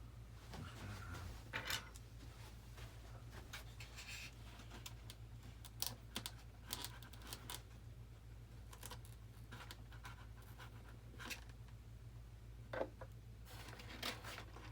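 Scattered scratching, rustling and small clicks of hands working an LED ring burner and its wire leads into a foam jet exhaust, over a steady low hum.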